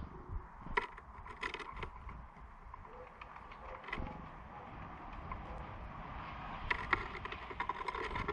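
Small birds at a wooden feeder: a scatter of quick sharp taps and clicks, bunched in two flurries, over a low steady rumble.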